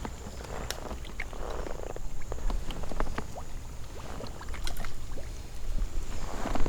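Small clicks, taps and rustles of fishing tackle being handled aboard a kayak, over a low steady rumble.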